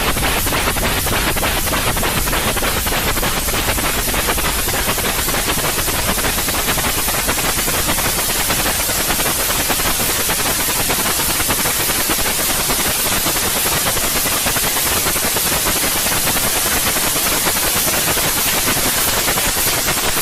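Steady white noise: an even hiss spread across all pitches, with no change in level. It is played as a soothing background for a colicky baby.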